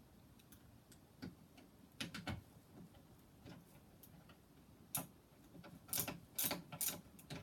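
Irregular clicks and small knocks of hand work on the lid-spring hardware of a wooden toy box: the spring and its screws are being fitted. The clicks are sparse at first and come louder and closer together in the last couple of seconds.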